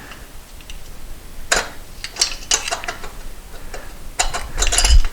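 Irregular metallic clicks and clinks of hand tools and small engine parts being handled, with a denser, louder run of clinks and a dull thump near the end.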